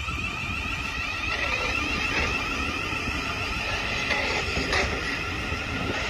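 Thameslink Class 700 electric multiple unit pulling away slowly, its traction equipment giving a high whine in several steady tones over a low rumble of wheels on rail, with a couple of faint clicks.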